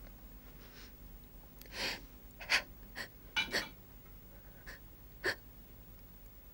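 A soft breath, then a few short clinks and knocks of glass and bottle while a drink is made at a sideboard.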